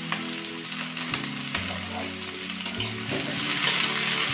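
Chopped onion and green chilli sizzling in hot oil in a steel wok, the sizzle swelling as a spatula stirs it near the end. Soft background music with held low notes plays underneath.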